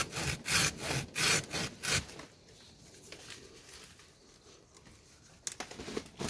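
Hand saw cutting through a papaya trunk, back-and-forth strokes about twice a second for the first two seconds, then stopping. Faint handling sounds near the end.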